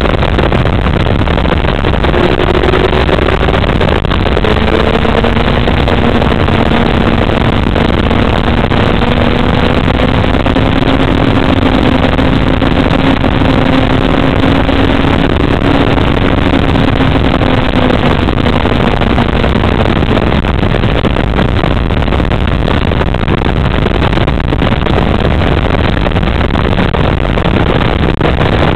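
Sport motorcycle engine running at road speed, heard from an onboard camera under loud, steady rushing noise; the engine note climbs slowly over the first few seconds, holds, then drops about two-thirds of the way through.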